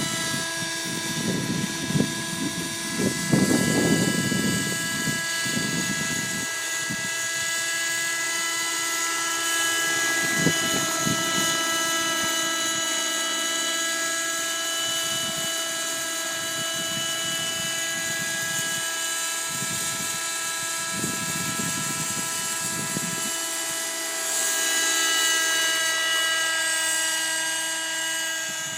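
Thunder Tiger Raptor 30 nitro RC helicopter running at a steady pitch, its glow engine and rotors giving a high whine that grows a little louder about three-quarters of the way through. Wind buffets the microphone in several gusts, strongest in the first six seconds.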